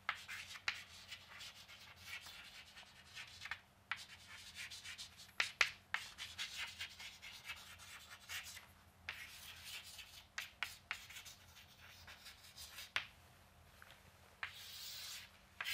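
Chalk writing on a blackboard: faint, quick scratches and taps of the chalk as words are written, with one longer steady scrape near the end.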